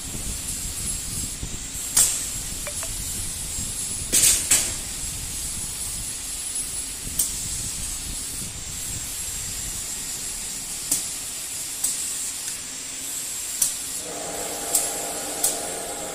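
Pneumatically clamped motor-shell welding machine at work: a steady hiss with a high whine, broken by several short sharp hisses and clicks of compressed air as the clamp cylinders and valves act. The two loudest come about four seconds in. Near the end a steady humming motor tone joins.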